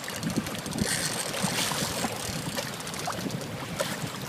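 Shallow water sloshing and trickling, a steady low wash with a few small splashes.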